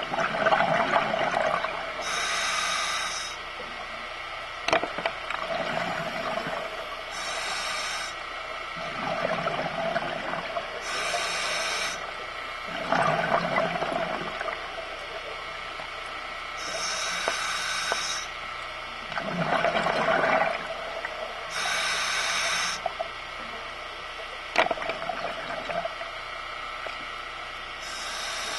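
Scuba diver breathing through a regulator underwater, about six breaths: each hissing inhale is followed by a rush of bubbling exhaled air. A few sharp clicks sound in between.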